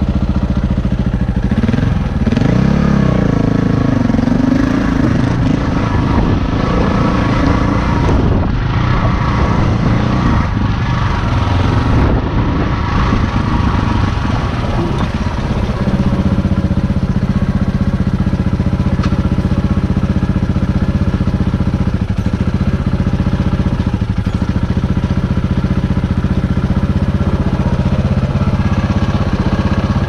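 Dirt bike engine running at low revs while the bike crawls over rocky trail, the revs rising and falling in the first half and holding a steadier low note in the second half.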